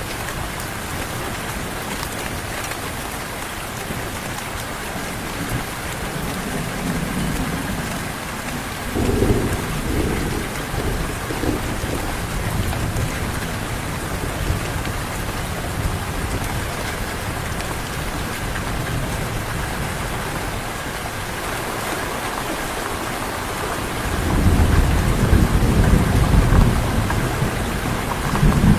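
Steady heavy rain with rolls of thunder. Low rumbles come about 6 s and 9 s in, and a longer, louder roll near the end.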